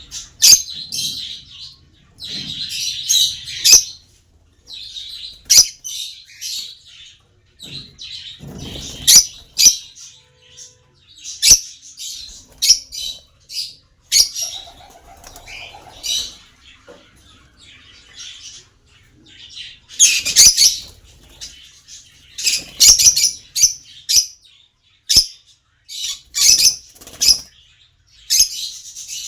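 Small pet birds chirping and chattering in many short, high-pitched bursts, with wing flaps and a few sharp clicks now and then.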